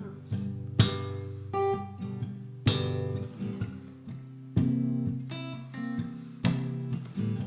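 Acoustic guitar being strummed, chords struck about once a second and left to ring and fade between strokes.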